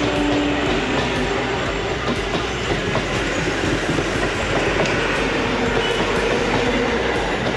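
Local passenger train running along the track: a steady rumble with the wheels clattering over the rails.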